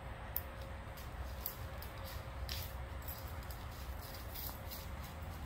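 Dog's paws rustling and crackling through dry fallen leaves, a scatter of short crackles over a steady low rumble.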